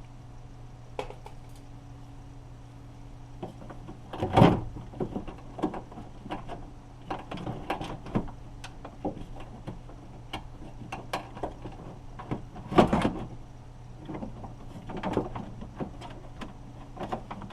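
Scattered clicks, taps and knocks of hand work on a car door's latch and lock actuator, tools and parts being handled, with two louder knocks about four seconds in and again about thirteen seconds in.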